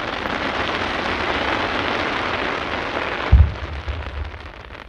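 Fireworks: a dense, rain-like crackling hiss of many tiny pops that dies away about three seconds in, then a deep boom with a low rumbling tail.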